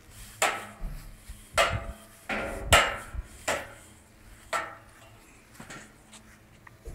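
A broom and dustpan knocking and clattering against concrete paving slabs, handled by a small child: about six sharp, uneven clacks in the first four and a half seconds, then only faint taps.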